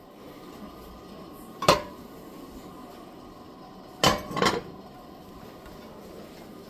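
Glass casserole dishes and lids clinking as they are handled: one sharp clink a little under two seconds in, then two or three more together about four seconds in.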